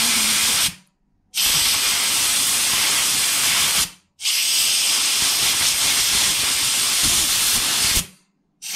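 Compressed-air blow gun on a compressor airline hissing loudly in long blasts through a small brass carburettor idle jet, blowing dirt out of its tiny holes. The air cuts off about a second in, then comes in two long blasts, and another starts right at the end.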